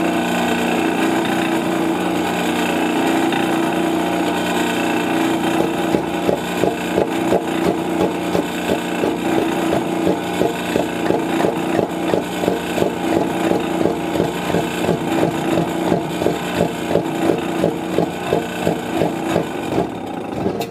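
Metal lathe running with a 16-inch wooden disc spinning in its chuck, a steady machine hum. From about six seconds in, a regular knock about three times a second joins it: the spinning wood striking a T-bolt once per turn, not cutting.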